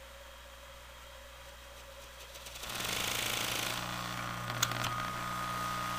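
Patton high-velocity fan's electric motor switched on with no blade fitted, spinning up about two and a half seconds in and then running on high with a steady hum and a fainter higher whine. A couple of sharp clicks come near the end.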